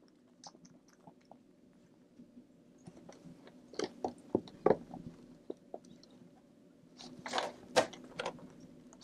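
A Minuet kitten licking and chewing at silvervine sprinkled on a corrugated cardboard scratcher and rubbing against it: irregular crunching, clicking and scraping, busiest around four seconds in and again near the end.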